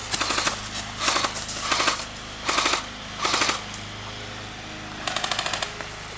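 Airsoft guns firing short full-auto bursts of rapid clicks, about six bursts in all: five close together in the first three and a half seconds, and one more about five seconds in.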